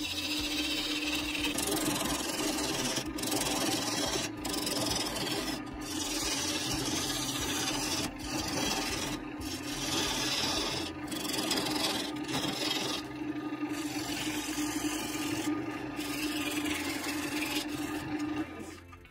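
Turning tool cutting into a spinning wooden bowl blank on a wood lathe: a continuous rough, rasping shaving sound over a steady hum. The cut breaks off briefly every second or two as the tool lifts, and the sound drops away just before the end.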